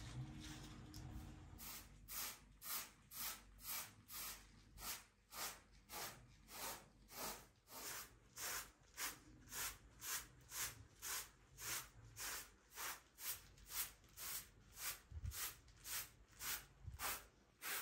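Short straw hand broom sweeping a floor: a steady run of brushing swishes, about two strokes a second, starting about two seconds in.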